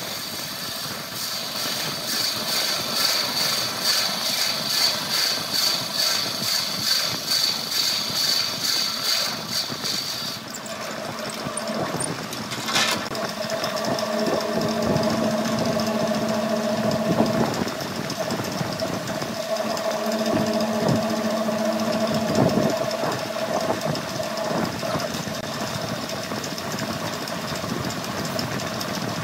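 Wood lathe spinning a large wooden vase while a hand-held tool cuts into its mouth: a high steady whine with a fast regular pulse for about the first ten seconds. The cutting then stops, a sharp knock comes a couple of seconds later, and the lathe runs on with a steady hum.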